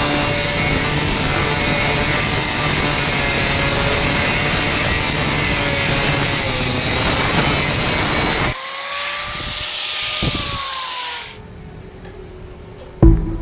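Power tool working metal, a steady harsh noise that cuts off sharply about eight and a half seconds in. A motor whine is left, which rises slightly and then falls away as the tool spins down.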